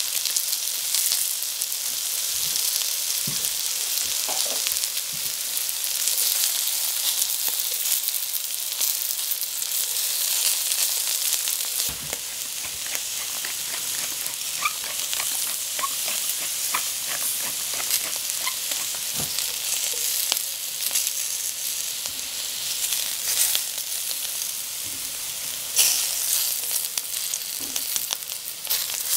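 Baby potatoes and carrot chunks frying in hot oil in a pot: a steady sizzling hiss with scattered small pops and crackles.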